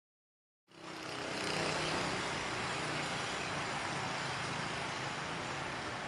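Steady rushing outdoor background noise, cutting in suddenly about a second in, with a faint low hum underneath at first.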